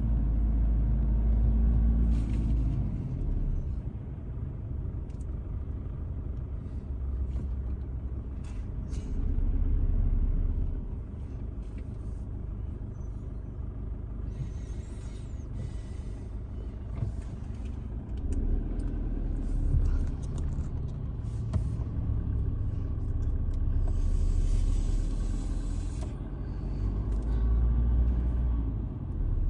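Low rumble of a car's engine and tyres heard from inside the cabin while creeping along in heavy traffic, swelling and easing several times as the car pulls forward and slows.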